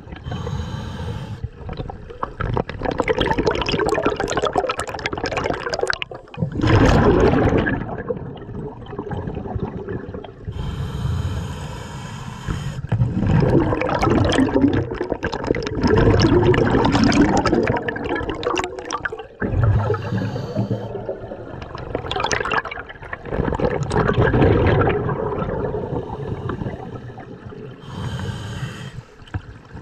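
Scuba diver breathing through a regulator underwater: a short hiss of inhaling, then several seconds of exhaled bubbles gurgling, repeating about every nine seconds.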